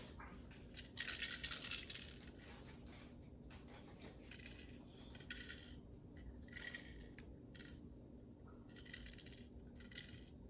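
Small hard plastic rattling and clicking while an airsoft pistol and its magazine are loaded with BBs: a louder rattling burst about a second in, then a series of short rattles and clicks.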